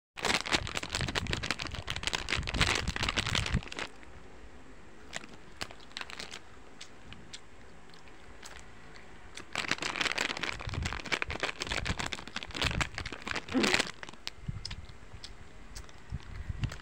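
Plastic Skittles candy bag crinkling as it is handled close to the microphone. It comes in two spells, over the first few seconds and again from about ten seconds in to near fourteen, with a few small clicks in the quieter stretch between.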